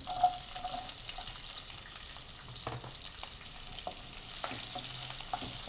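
Chopped onions, green chillies and cumin sizzling in hot oil in a ceramic-coated pan, stirred with a wooden spatula that knocks against the pan a few times: the onion tempering frying.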